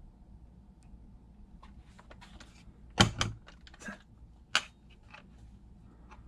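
3D-printed plastic airsoft FPG being handled and turned over in the hands: a run of light clicks and knocks from the plastic parts, with a louder knock about three seconds in and a sharp click a second and a half later.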